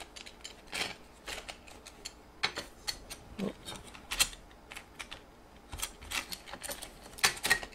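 Irregular clicks and light metal taps as corner pieces are pushed into the channels of black metal sectional picture-frame sides, the frame rails knocking on a wooden cutting board. The loudest clicks come near the end.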